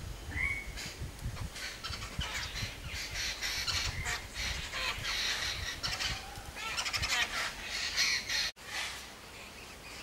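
A flock of babblers giving dense, overlapping harsh chattering calls. The sound cuts out briefly near the end.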